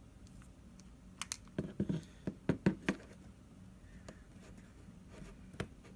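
Light clicks and taps of a phone and small repair tools being handled on a work surface: a quick cluster between about one and three seconds in, and one more tap near the end, over a faint steady hum.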